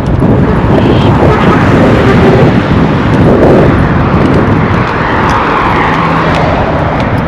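Road traffic: motor vehicles driving past close by, loud and continuous, with one engine's hum standing out about five seconds in.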